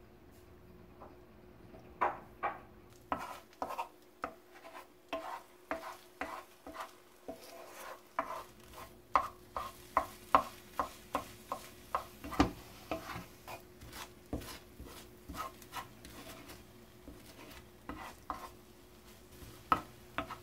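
Wooden spatula stirring and scraping eggs as they scramble in a nonstick frying pan, with a faint sizzle. The spatula knocks against the pan about twice a second from about two seconds in.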